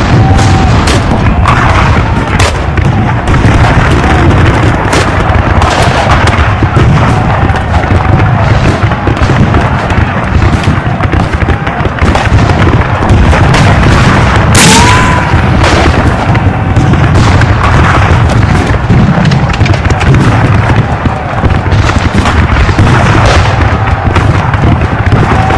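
Recreated American Civil War battle din: continuous musket fire and cannon booms over a heavy rumble, with one especially loud, sharp crack about halfway through. Short whistling tones come and go here and there.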